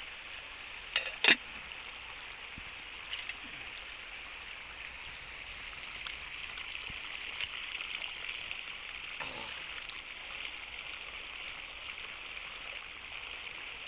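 Steady high-pitched chorus of insects in a rice paddy, with two sharp knocks about a second in.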